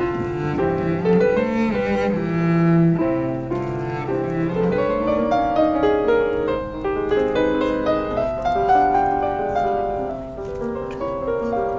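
Cello and grand piano playing a slow classical piece together. About halfway through the cello's long low notes stop and the piano carries on alone.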